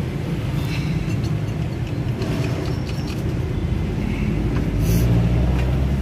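Steady low rumble of motor-vehicle noise that grows louder about five seconds in, with a few light clicks and taps over it.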